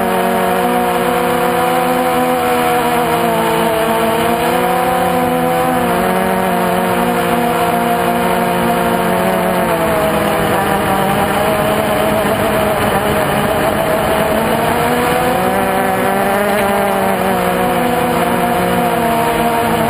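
Multirotor drone's electric motors and propellers whining, heard from the camera on board, the pitch wavering up and down as the throttle changes and turning rougher and less even for a few seconds in the middle.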